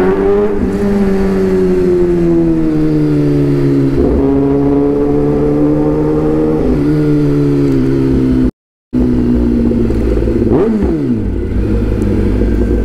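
Kawasaki ZX-10R's inline-four engine running on the move, its pitch sinking slowly as it eases off, lifting briefly and sinking again. The sound cuts out for a moment past the middle, then comes back steadier, with one quick falling glide.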